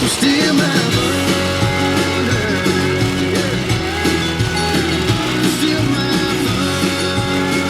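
Rock music with electric guitar and singing.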